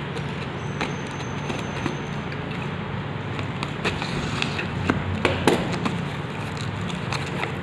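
Snap-off utility knife slicing through packing tape and cardboard on a parcel, with scattered clicks and scrapes. The loudest of these come about five seconds in, as the box flap is pulled open. A steady hum runs underneath.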